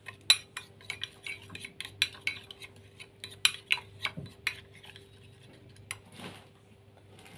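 Metal spoon stirring sauce in a ceramic bowl, clinking and scraping against the bowl several times a second; the clinks thin out after about four and a half seconds.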